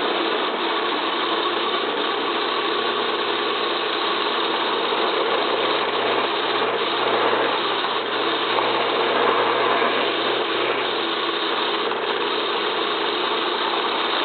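Craftsman 109 lathe, rigged as a drill press, running steadily while a number 3 drill bit cuts the tap hole for a 1/4-28 set screw in a pulley adapter. A continuous mechanical whir over a steady low hum.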